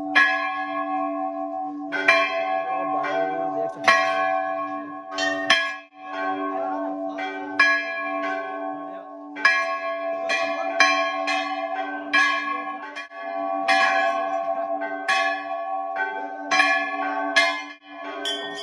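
Several large temple bells struck over and over by hand, a clang every half second to second, with each bell's ringing hum carrying on under the next stroke.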